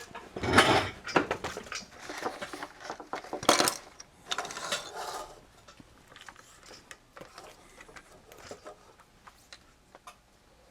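Camera and its mount being handled and repositioned: knocks, scrapes and ratchet-like clicks, loudest in the first few seconds, then trailing off into light scattered ticks.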